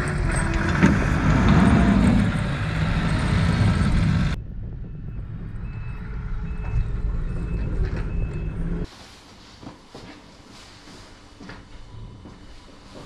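Small wheel loader's engine running loudly while it clears snow. About four seconds in the sound drops to a fainter engine hum with a row of short high beeps, and near the end it falls to quiet indoor room sound with a few light knocks.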